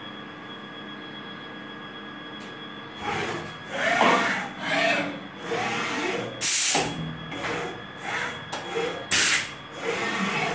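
PEAR EC32 vertical machining center running: a steady hum with faint steady tones, then about three seconds in irregular loud mechanical noise of the machine moving, with whines rising and falling and two short sharp hisses, the first a little past the middle and the second near the end.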